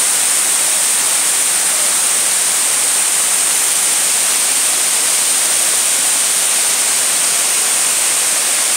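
Multi-tiered waterfall: water rushing steadily down the cascades as an even, unbroken hiss.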